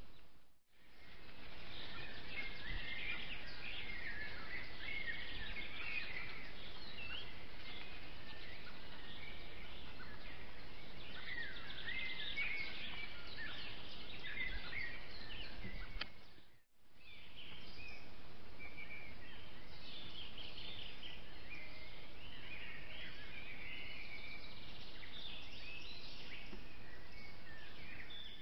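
Several songbirds singing, a dense mix of short chirps, trills and warbling phrases over the steady hiss of a trail camera's microphone. The sound drops out briefly twice where one camera clip gives way to the next.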